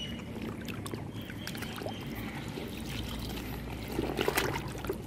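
Wet jute sacking squelched and sloshed by hand in a bucket of cement slurry: watery splashing and dripping, louder about four seconds in.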